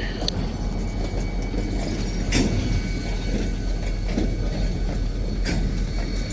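Steady low vehicle rumble with two sharp knocks, about two and five seconds in.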